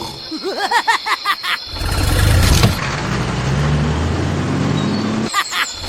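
First a quick run of bouncing pitch glides, like a cartoon sound effect. Then a vehicle engine runs with a slowly rising pitch for about three and a half seconds, ending in a few short clicks.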